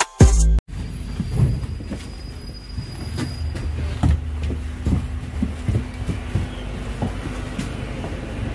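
The last half second of music cuts off, then comes the inside of a Wright Gemini 3 double-decker bus standing at a stop: a low engine rumble with knocks, rattles and footsteps as someone comes down the stairs towards the doors. A faint thin whine runs through the first few seconds, and a steady low hum comes up near the end.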